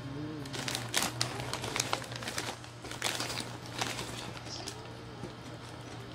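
Plastic potato-chip bag crinkling as it is handled, with sharp crackles scattered irregularly through, over a steady low hum.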